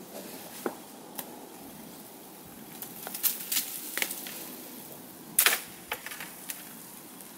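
Scattered sharp clicks and knocks at irregular intervals over a low background hiss. A small cluster comes about three seconds in, and the loudest, a double click, about five and a half seconds in.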